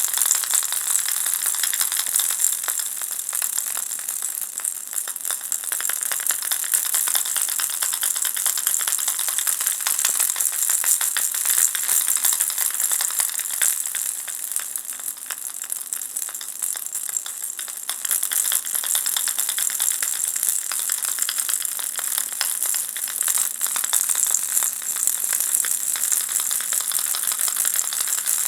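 Ball-shaped baby rattle shaken continuously: a dense, unbroken stream of fine, high clicking from the beads inside, easing slightly for a couple of seconds midway.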